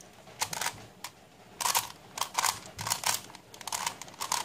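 Plastic face-turning octahedron puzzle being turned by hand: a string of quick clicking clacks as its faces rotate, often in pairs, several times over a few seconds.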